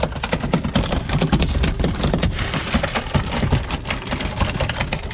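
Steady rushing noise of wind and water around a small fishing boat out on the open ocean, with many irregular knocks and clatters mixed in.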